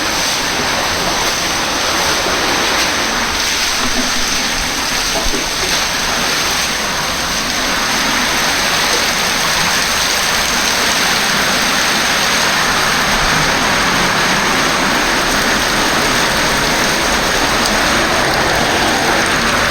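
Heavy downpour: a loud, steady, dense hiss of rain and running water.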